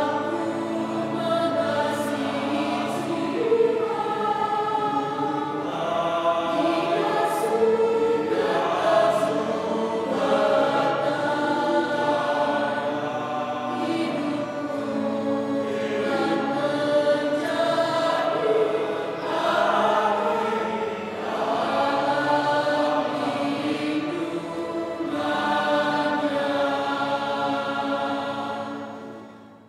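Mixed church choir singing a hymn in two voice parts, the sound fading out near the end.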